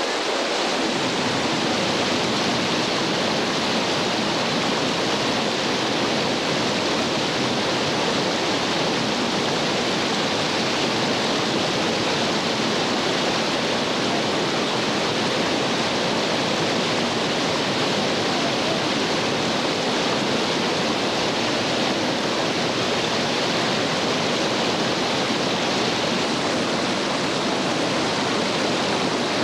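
Whitewater creek rapids rushing steadily: a loud, even noise of churning water with no breaks.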